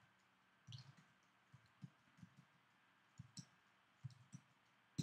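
Faint, irregular clicks of computer keys being typed: about a dozen separate keystrokes spread over a few seconds.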